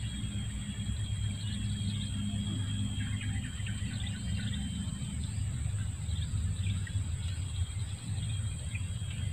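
Outdoor swamp ambience: a steady low rumble with a steady high hiss, and scattered faint bird chirps.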